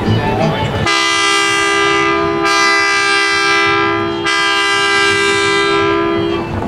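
Steam locomotive No. 29's whistle blowing one long blast of about five and a half seconds, starting about a second in: a steady chord with a hissy upper edge that dips twice.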